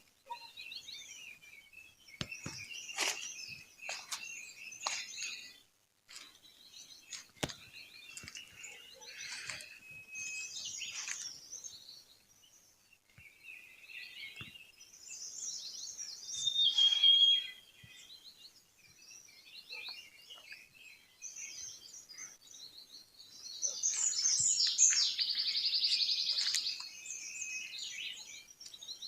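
Several small birds chirping and calling, a chorus of short, high chirps and trills. About two thirds of the way through comes one clear whistled note, and near the end a loud, rapid trill is the loudest call. A few sharp clicks sound in the first several seconds.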